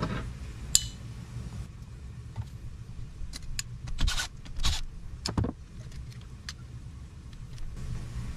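Scattered light metallic clicks and scrapes of small engine parts and hardware being handled by hand during top-end disassembly, over a steady low hum.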